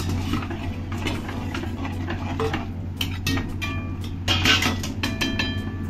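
Metal spatula stirring and scraping through a thick sauce in an aluminium kadhai, with short ringing scrapes, the loudest about four and a half seconds in. A steady low hum runs underneath.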